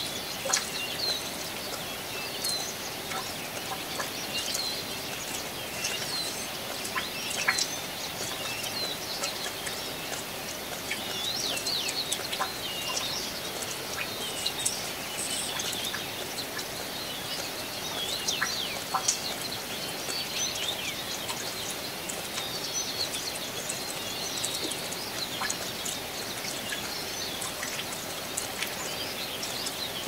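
Steady rain falling, with sharp drip clicks here and there, while many small birds chirp and twitter with quick high calls.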